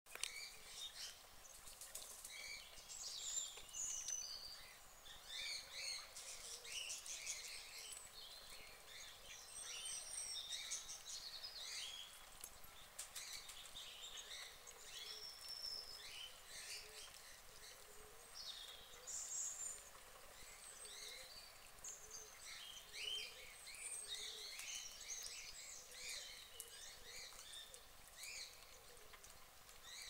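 Small birds chirping and twittering, many short high calls overlapping one another all the way through, faint over a steady low hiss.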